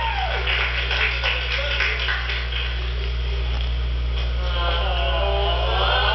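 Party music playing back from a video recording, with a steady low electrical hum underneath. A voice comes in near the end.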